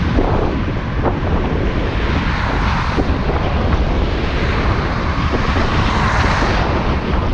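Wind rushing over the microphone of a camera on a moving vehicle, a loud steady noise mixed with road noise.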